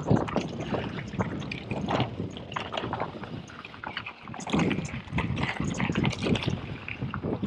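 Orbea Rallon full-suspension mountain bike riding fast down a rocky gravel trail: tyres crunching over stones, with a constant irregular clatter of knocks and rattles from the bike, and wind rushing over the microphone. The clatter gets louder for a couple of seconds past the middle, as if over rougher rock.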